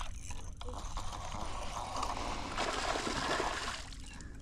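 Water splashing and trickling, a crackly wash that builds about half a second in and eases off near the end.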